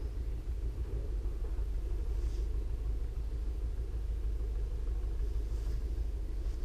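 Low steady rumble on the camera's microphone, even throughout, with no distinct events.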